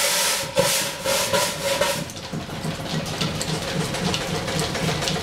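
Shop steam engine starting up to drive the line shaft: a loud hiss of steam with puffs for the first two seconds, then settling into quieter, steady rhythmic running with light ticking.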